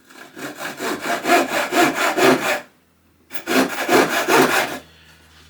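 Hand saw cutting a tenon in a wooden hive rail: two bouts of quick back-and-forth strokes, with a short pause between them.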